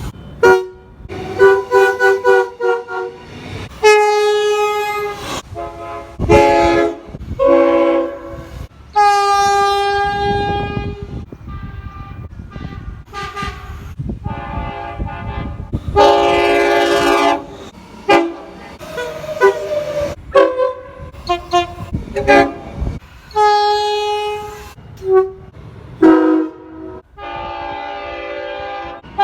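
Railroad locomotive air horns sounding in a rapid series of separate blasts, some short toots and some held for a second or two. The chords change in pitch from blast to blast, as different horns follow one another with abrupt cuts between them.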